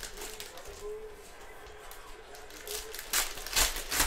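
Cellophane wrapper of a trading-card pack crinkling as it is handled and torn open. Several loud crinkling bursts come close together from a little under three seconds in.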